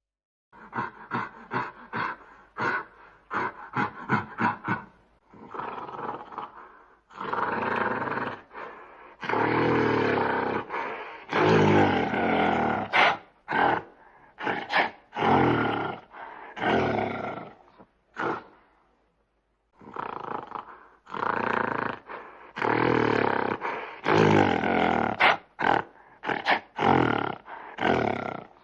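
Monkey calls, harsh and loud, coming in runs: a quick series of short calls at first, then longer calls with a brief pause about two-thirds of the way through.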